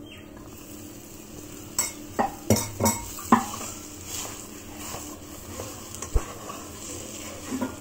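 Wooden spatula knocking and scraping in a frying pan as mashed potatoes are stirred into a fried spice mixture, with a run of sharp knocks about two to three and a half seconds in and a single click near the end. A faint sizzle from the hot pan underneath.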